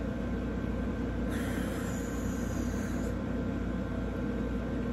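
Steady low background hum of a quiet room, with a faint breathy hiss from about one to three seconds in.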